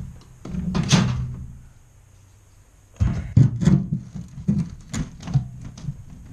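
Steel pry bar jabbing and prying at a travel trailer's steel frame rail, making metallic knocks and thuds. A burst of hits comes about a second in, then a quick run of strikes fills the last three seconds.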